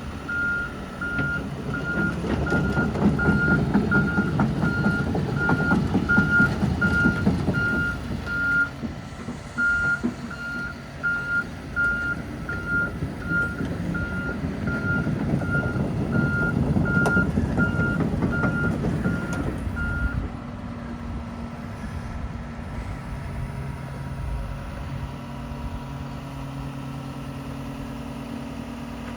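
2023 John Deere 210P excavator's diesel engine working under load with its motion alarm beeping about twice a second; the beeping stops about 20 s in and the engine settles to a steady idle.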